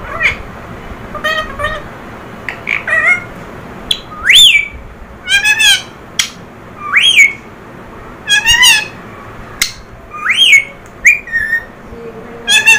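Caged ring-necked parakeet whistling and calling: three loud whistles that sweep up and fall back, with short, several-pitched squawky calls in between.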